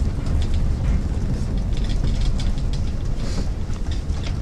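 Cabin noise inside the Shanghai Transrapid maglev train as it creeps to a stop at walking pace, about 8 to 6 km/h: a steady low rumble with scattered light clicks and rattles.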